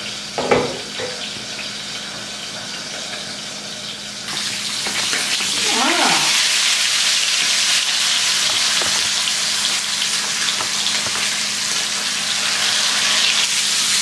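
Spice-coated fish steaks shallow-frying in hot oil in a pan, sizzling steadily; the sizzle gets louder and brighter about four seconds in.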